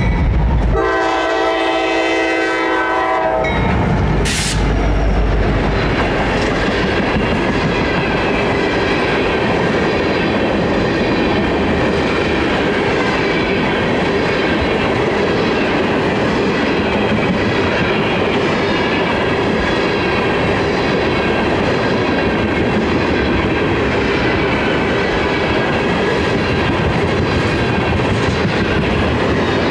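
A Norfolk Southern diesel freight locomotive passes with a low rumble and sounds one chord-like horn blast of about two and a half seconds, starting just under a second in. A sharp knock follows about four seconds in. A long train of tank cars then rolls by, its wheels clacking steadily over the rails.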